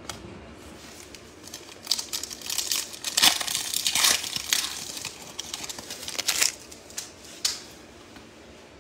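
Foil wrapper of a Prizm Draft Picks basketball card pack being torn open and crinkled by hand: a run of crackling that starts about two seconds in and dies away near the end.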